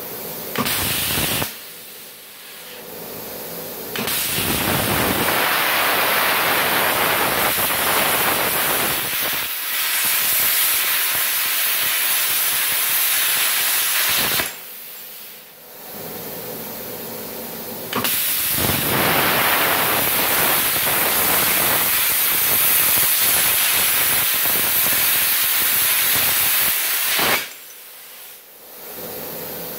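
Multipro Cut 120 air plasma cutter cutting through 1 cm steel plate: the arc and compressed air make a loud, steady hiss. The hiss comes in two stretches of about ten seconds each, with a pause of a few seconds between them, after a short burst about a second in.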